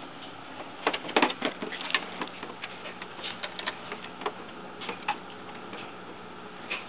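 Light clicks and taps: a quick cluster about a second in, then scattered single ticks.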